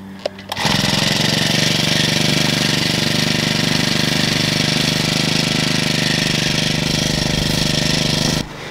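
Small engine-driven water pump starting up about half a second in, then running steadily at a fast, even rate as it draws water from a dam.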